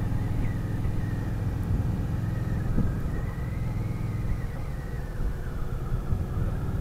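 Cruiser motorcycle engine running steadily at low road speed, heard from the rider's own bike, with road and wind noise. A higher engine note rises slightly and eases back around the middle.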